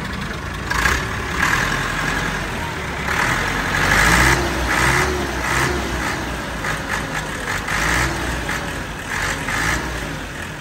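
ATS 290 4x4 tractor's diesel engine running, revved up in several short bursts that rise and fall in pitch over its steady low running sound, the strongest about four seconds in.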